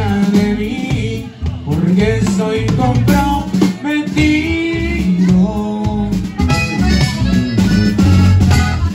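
Live norteño-style band playing: button accordion and acoustic guitar over electric bass and a drum kit.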